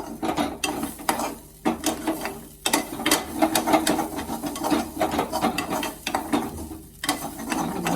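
Spatula stirring and scraping grated ginger around a kadhai, a quick irregular run of scrapes and clicks against the pan with short pauses. The ginger is being roasted in ghee until its moisture dries off.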